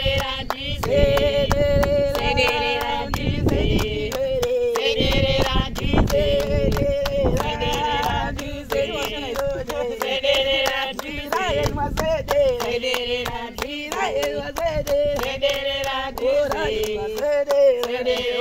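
A group of women singing together to steady rhythmic hand-clapping.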